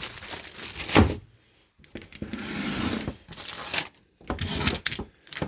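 Welding accessories being handled out of their packaging: a couple of sharp knocks, then a stretch of plastic-wrap rustling, then more knocks and rustles near the end.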